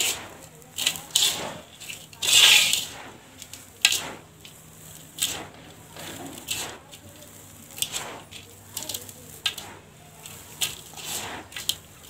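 Dry, gritty sand-and-dirt mix scooped by gloved hands and poured back into a steel tub: repeated crunching and hissing pours with sharp gritty clicks, the longest and loudest pour about two and a half seconds in.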